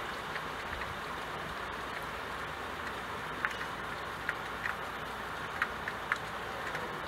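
Rain falling on a window: a steady hiss of rain with a few sharper drops ticking on the glass in the second half, over a faint low rumble.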